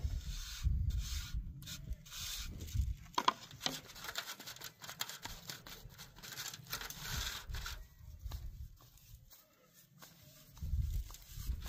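Hands working pizza dough and handling plastic clamshell food containers: irregular rubbing and scraping with light clicks, over a low wind rumble on the microphone.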